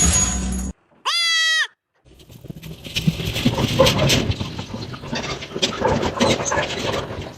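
A single short animal cry, high-pitched and held for about half a second, followed after a brief gap by an irregular rustling, clattering noise.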